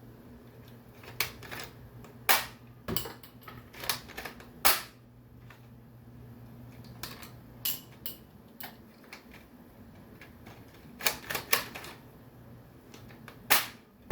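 Irregular sharp plastic clicks and knocks from a toy M32 grenade launcher being worked by hand, in two clusters with a pause between, over a low steady hum.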